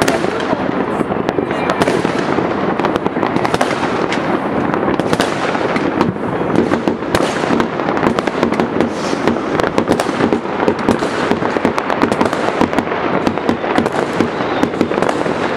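Many fireworks and firecrackers going off at once: a dense, continuous crackle of pops and bangs with no pause.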